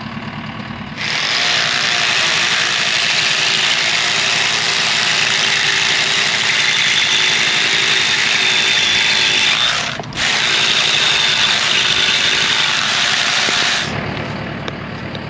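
Corded drill boring into a concrete pier pad, running hard for about nine seconds, stopping for a moment, then running another few seconds before it cuts off.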